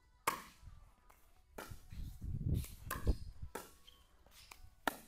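Pickleball rally: a plastic ball popping off hard paddles, a run of sharp hits about a second apart.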